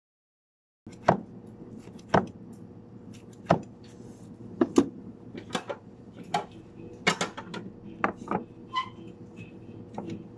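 Sharp knocks of a kitchen knife on a cutting board as sushi rolls are sliced, about one a second, then a run of closer knocks and clatter as utensils and containers are handled, over a steady appliance hum. The sound starts about a second in.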